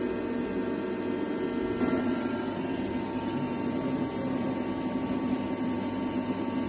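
Okuma ES-L8ii-M CNC lathe running: a steady mechanical hum with several whine tones, some of which drop out about two and a half seconds in.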